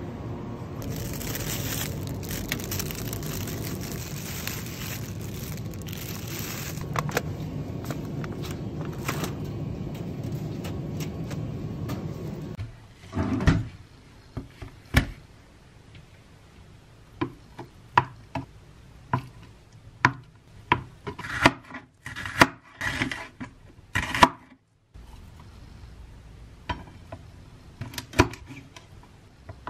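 Steady supermarket background noise beside the chilled shelves, cut off suddenly about halfway through. Then kitchen sounds: items set down on a counter with sharp knocks and clatter, and a knife cutting on a plastic chopping board near the end.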